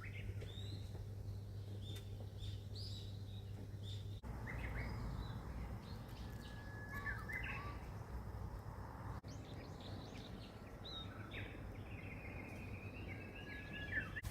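Small birds chirping and calling with short whistled notes and chirps over a steady low outdoor background rumble.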